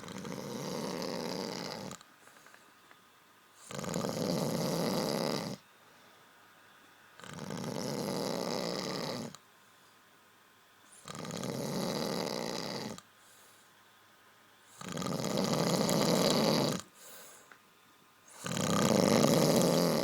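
A person snoring in a steady rhythm: six long snores about every three and a half to four seconds, each lasting about two seconds, the last two the loudest.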